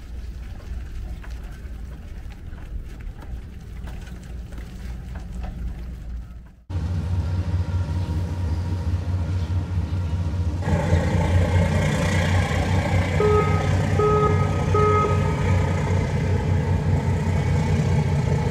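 Engines of a Dumai Express high-speed ferry running at the pier, growing louder about ten seconds in as it gets under way, with three short toots of its horn partway through. Before this, several seconds of quieter low rumble.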